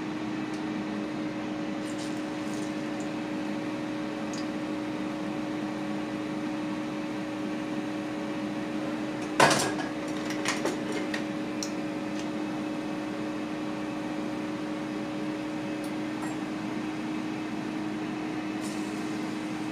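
Steady kitchen appliance hum. About halfway through, one sharp clack, then a few lighter clinks as kitchen utensils are handled at an electric skillet.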